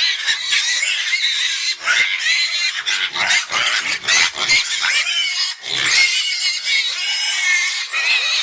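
Pigs squealing: a dense, unbroken run of high-pitched squeals.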